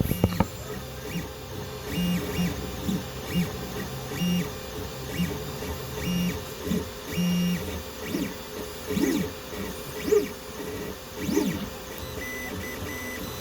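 Sunlu FDM 3D printer running a print: its stepper motors sound in short start-stop moves, each a brief steady tone, as the print head travels back and forth. A few sharp clicks come right at the start.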